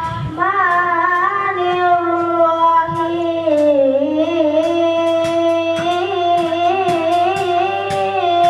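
A boy's voice chanting into a microphone in long held, ornamented notes that bend slowly up and down, in the manner of a Quran recitation (tilawah). A steady low hum runs underneath.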